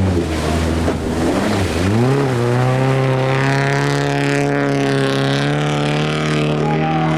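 An off-road race car's engine under hard throttle. Its revs drop and climb twice in the first two seconds, as at gear changes, then hold steady and high.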